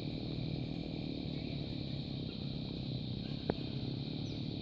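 Chainsaw engine running steadily, with one sharp click about three and a half seconds in.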